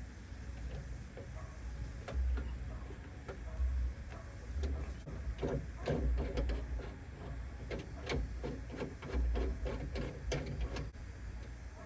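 Hand rivet gun being squeezed repeatedly to set rivets in a door card: a run of sharp clicks and knocks, thickest in the second half.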